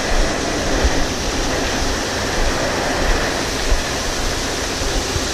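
Steady rushing hiss of shelled corn pouring from an overhead spout into an open-top semi grain trailer, with a low rumble underneath.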